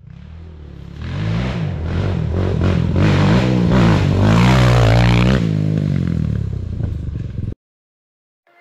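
Quad (ATV) engine revving up and down as it is ridden along a dirt trail, growing louder as it comes closer, then cutting off suddenly near the end.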